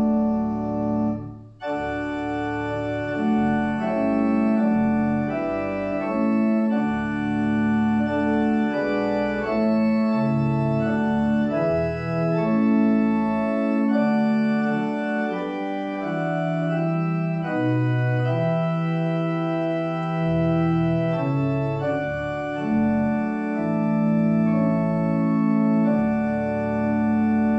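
Church pipe organ playing a hymn tune in slow, sustained chords, with a brief break about a second and a half in before the next phrase.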